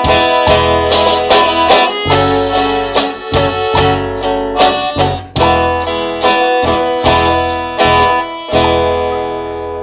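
Instrumental passage of a Spanish-language praise song: a plucked guitar melody of quick, sharply picked notes over sustained bass notes, with no singing.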